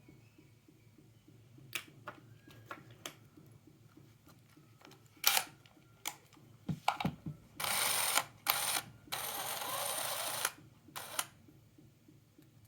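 Cordless drill being handled with a series of clicks and knocks, then run twice: briefly about eight seconds in, then for about a second and a half, followed by a couple more clicks.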